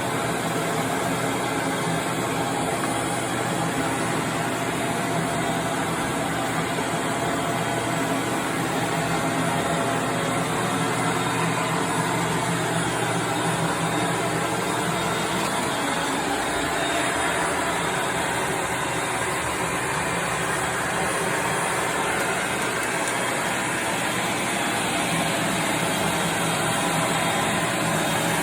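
Band saw running, a steady machine noise that holds at an even level throughout.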